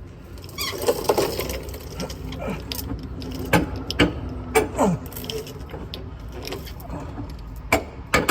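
Metal hand tools clinking and knocking, with scattered sharp clicks, as a wrench and socket are fitted to a rear suspension bolt.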